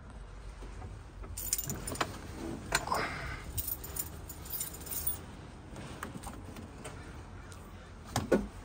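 Metallic jangling and clicking from about a second and a half in until about five seconds in, over a steady low rumble. A sharp knock comes near the end.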